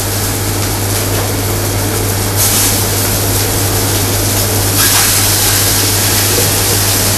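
Scallops searing in hot olive oil in a frying pan: a loud, steady sizzle that flares up again about five seconds in as another scallop goes into the pan, over a steady low hum.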